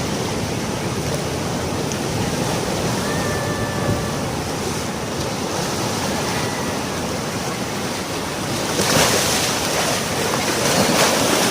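Sea surf washing on a beach, a steady rush with a louder wave breaking about nine seconds in and again near the end.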